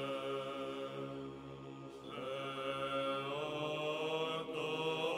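Background vocal chant: voices holding long sustained notes, fading a little and then moving to a new note about two seconds in, and shifting again shortly after.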